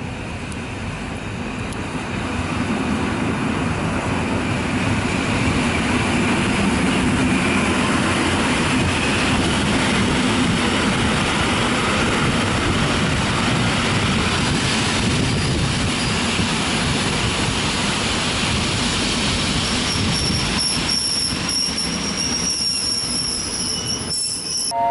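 Koleje Mazowieckie EN57AKM electric multiple unit running in along the platform and rolling past, a steady rumble of wheels on rail that grows louder over the first few seconds as it comes close. A thin, high, steady squeal joins about twenty seconds in.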